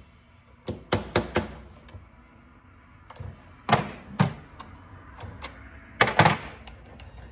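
Sharp metal clicks and knocks in three short clusters, about one second in, near four seconds and about six seconds in, from tools and parts being handled at the vise and table of a small combination milling machine.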